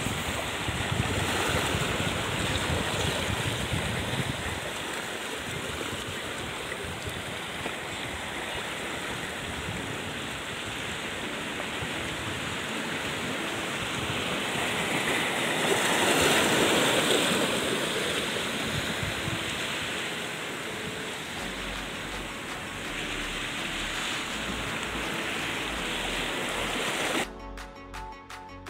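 Sea surf washing on the shore as a steady rushing, swelling louder about halfway through. Background music cuts in abruptly near the end.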